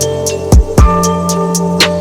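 Hip hop instrumental beat with no vocals: sustained bass and synth notes under a programmed drum pattern, with two deep kick-drum thumps about half a second apart near the middle and sharp drum strokes above them.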